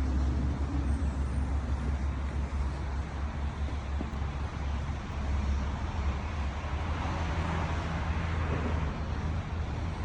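A steady low engine drone with traffic noise.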